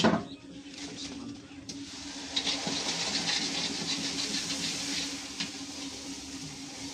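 Puris deep-frying in hot oil in a kadhai, sizzling and crackling steadily from about two seconds in as they are stirred with a ladle. A sharp knock at the very start, and a steady low hum underneath.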